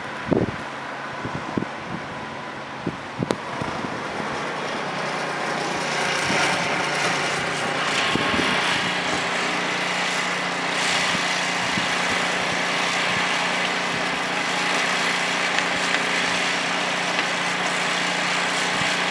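Blizzard wind: gusts thump against the microphone for the first few seconds, then give way to a louder, steady hiss of wind and blowing snow. A steady engine-like hum runs underneath.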